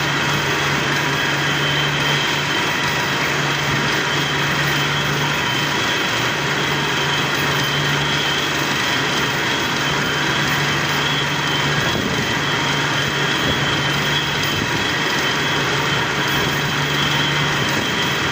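Industrial machinery running steadily: a continuous mechanical drone with a low hum and a thin high whine throughout.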